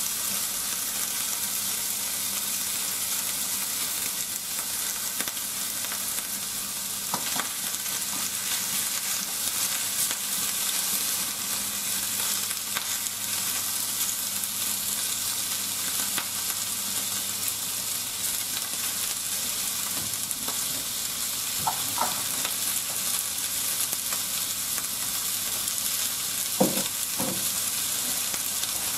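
Sliced onions and pork sizzling steadily in a frying pan, with a few sharp clicks of chopsticks against the pan as the food is turned, a small cluster of them near the end.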